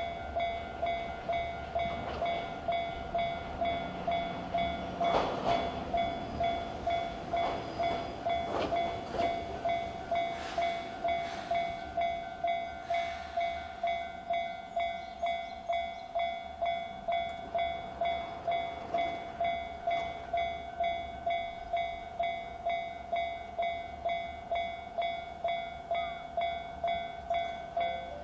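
Railway level-crossing alarm sounding the JR standard electronic bell tone, striking steadily at about two dings a second. Over roughly the first half, bursts of rushing noise are heard under it.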